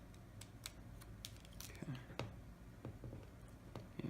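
Light, irregular clicks and taps from small-parts handling inside an LG G3 phone as the rear camera's connector is unplugged and pressed back onto the board.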